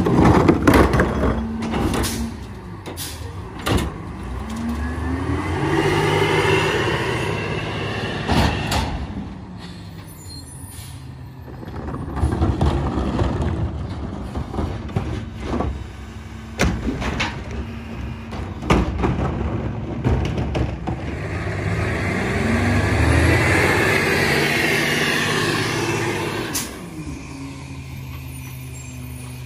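A Peterbilt 348 rear-load garbage truck's EZ-Pack packer cycling twice: each time the engine revs up while the hydraulics whine as the blade sweeps, then the engine drops back. Sharp clanks and knocks of the packer and trash come in between.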